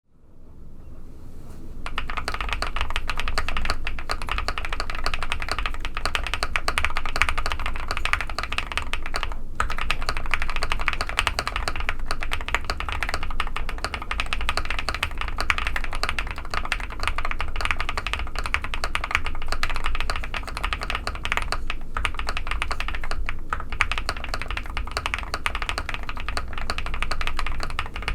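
Fast, continuous typing on a custom mechanical keyboard with lubed Qwertyqop Quartz linear switches on a POM plate, a fully foamed case and PBT keycaps. It makes a dense run of keystrokes that fades in over the first two seconds, with a couple of brief pauses.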